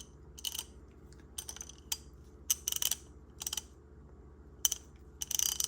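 An older Snap-on ratchet being worked back and forth, its mechanism clicking in about seven short bursts of rapid clicks. The mechanism is stiff and has only just freed up; the owner judges it worn out and in need of repair.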